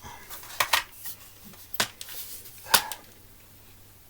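Sharp clicks and light knocks of BB gun parts being handled and fitted together, five in all over about three seconds.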